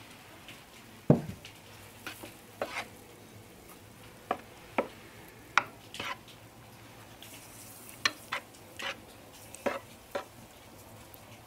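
Wooden spoon stirring thick gingerbread batter in a metal pot, knocking and scraping against the pot's sides in scattered strokes as spices are worked in. A heavier knock about a second in is the loudest sound.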